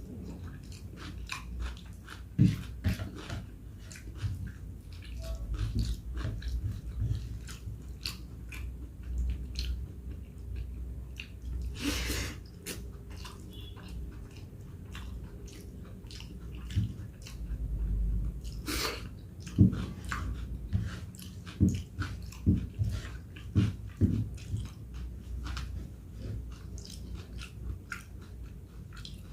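Close-up chewing and eating sounds of a person eating rice with dal and vegetables: many small wet mouth clicks, with a few louder ones.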